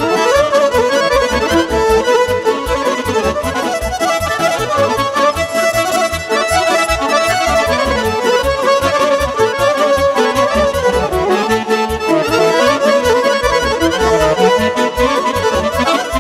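Instrumental break of Romanian party music led by a Roland digital accordion playing a fast melody, over a steady beat.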